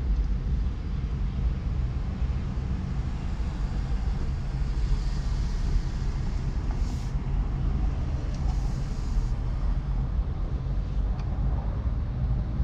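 A car driving along city streets, with a steady low rumble of road and engine noise. A higher hiss rises briefly about five seconds in and fades out after about nine.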